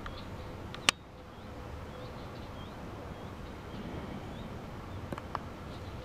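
Small wild birds calling faintly in scattered short chirps over a low rumble on the microphone, with one sharp click about a second in.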